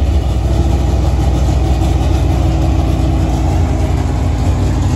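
An engine idling steadily, deep and loud.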